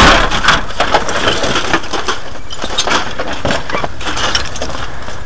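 A CRT television being broken apart for scrap: a loud crunch at the start, then a run of cracks and snaps of plastic and metal parts giving way.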